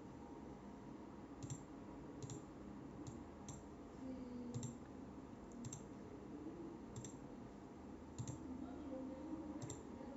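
Computer mouse clicking: about ten faint, separate clicks at uneven intervals, as wires are placed in a circuit simulator.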